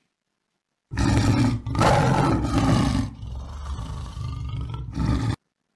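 A tiger roaring: a loud roar starting about a second in, broken briefly, then a quieter stretch and a last short roar that cuts off suddenly.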